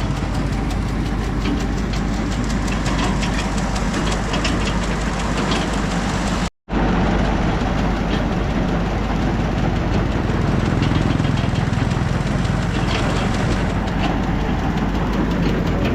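An engine running steadily, with a light repeated knocking over it. The sound cuts out briefly about six and a half seconds in.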